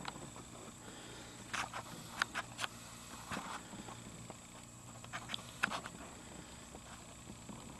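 A few scattered light clicks and knocks, in small clusters, over a faint steady low hum.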